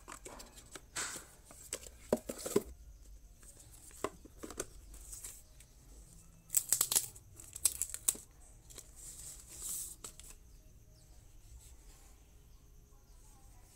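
Smartphone packaging being handled and a clear plastic protective sleeve crinkling and tearing as it is pulled off the phone, in several short spells of rustling. The loudest comes about seven seconds in, and it stops after about ten seconds.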